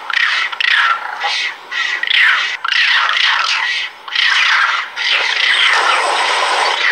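A loud, busy chorus of high-pitched animal calls: many short squeals and yelps overlapping, each sliding up or down in pitch, a few every second, with brief pauses about four and five seconds in.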